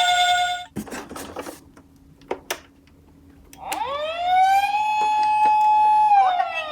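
Toy emergency vehicle's electronic siren: a high-low two-tone note ends just after the start, a few light clicks and knocks follow, then about three and a half seconds in a siren wail sweeps up, holds steady, and begins to fall away near the end.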